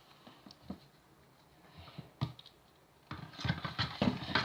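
Slime being stirred with a spoon: scattered faint clicks and sticky taps, growing busier in the last second or so as the mixture starts coming together.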